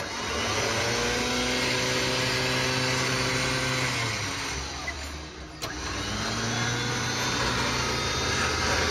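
Grizzly electric winch on the front of a Dacia Duster running under the wired remote, its motor giving a steady whine while it winds the synthetic rope. It runs for about four seconds and spins down, then a click is heard and it starts again, running for about four more seconds.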